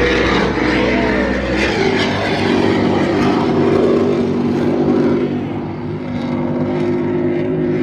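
Boat engine running steadily, with a loud rushing noise over it.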